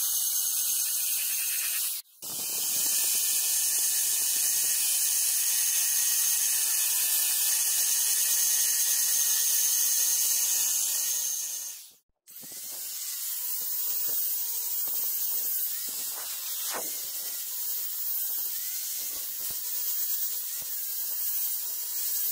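An electric rotary tool with a small grinding bit runs with a steady high-pitched whine as it grinds a weld seam on a steel cleaver blade. The sound breaks off suddenly twice. After the second break, an angle grinder with a sanding disc grinds the steel blade, its pitch wavering as it is pressed on.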